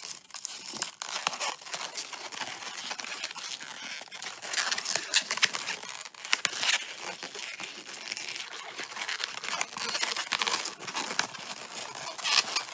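Green 260Q latex modelling balloon being twisted and bent in the hands: the latex rubbing against the fingers and against itself in a continuous run of crackling scrapes and clicks.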